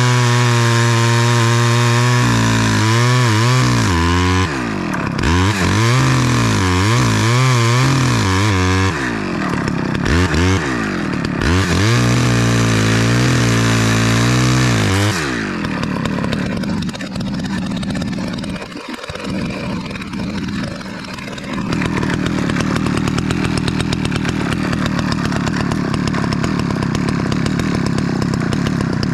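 Small Stihl two-stroke chainsaw cutting ash at full throttle, its engine note repeatedly dipping under load and recovering as the chain bites and clears the wood. About fifteen seconds in it drops off throttle, runs unevenly, then settles to a steady lower note.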